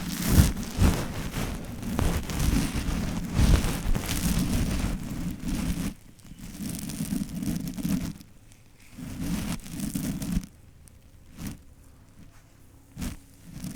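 Close, loud rustling and brushing noises that come and go in patches, heavy in the low end, followed by a few sharp clicks near the end.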